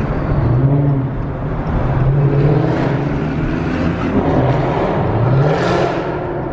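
Car engine and exhaust heard from inside the moving car, the engine note rising and falling as it speeds up and eases off.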